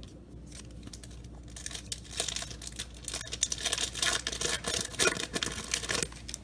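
A trading-card pack wrapper being torn open and crinkled: a dense, irregular crackling that starts about one and a half seconds in and stops shortly before the end.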